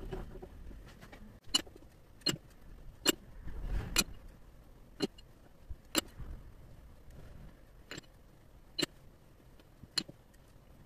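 A series of sharp clicks, roughly one a second at uneven spacing, over a faint low hum.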